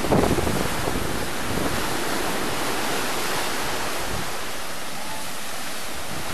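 Sea waves breaking and washing in around rocks on a sandy shore: a steady rush of surf, with a louder surge of a breaking wave just at the start.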